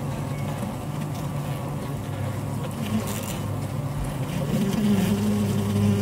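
Honeybee colony humming inside the hive, picked up by a microphone among the combs: a steady drone that grows louder and takes on a clearer pitch about four and a half seconds in.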